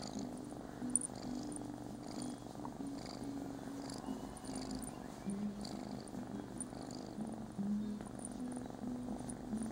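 Scottish Fold kitten purring steadily, the low purr pulsing with each breath in and out, a contented purr while it is stroked under the chin.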